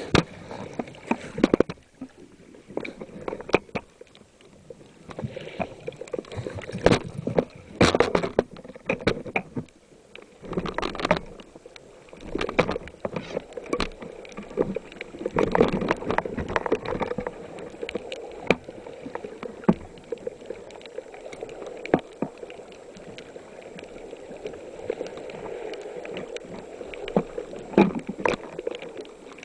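Water sloshing and gurgling, with many sharp clicks and knocks scattered through it.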